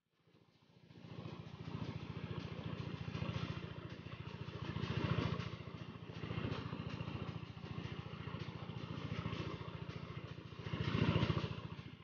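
A small engine running with a rapid, even pulse. It comes in about a second in, swells and eases a few times, and fades near the end.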